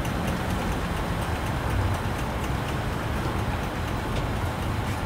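Steady low rumbling background noise of a busy outdoor street market, with a few faint clicks.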